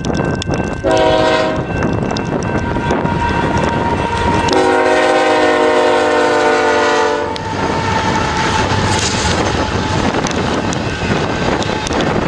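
Passing BNSF freight train: the locomotive's air horn sounds a short blast about a second in, then a long blast of about three seconds, over the steady rumble and clatter of the train on the rails.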